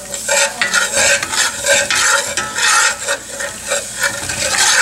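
A metal spoon stirs and scrapes around a cast-iron skillet in repeated strokes, while a hot butter-and-flour roux sizzles as milk is poured into it.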